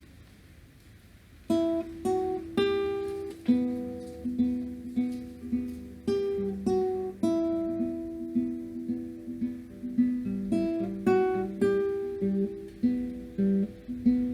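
Background music: an acoustic guitar picking notes in a steady rhythm, coming in about a second and a half in.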